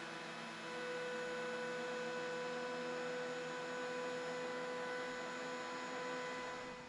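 DeWalt benchtop thickness planer running steadily, a machine whine with several steady tones over a rush of air, dropping away near the end.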